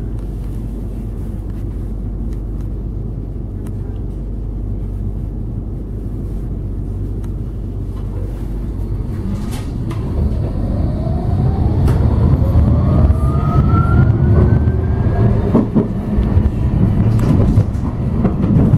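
Inside a Bombardier Incentro tram: a steady low hum, then about nine seconds in the traction motors start a rising whine of several tones that climbs and levels off as the tram accelerates. The running rumble grows louder with it.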